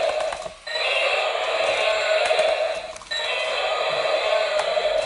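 Electric toy Tyrannosaurus rex playing its recorded dinosaur roar, the same clip looping about every two and a half seconds with brief breaks between repeats.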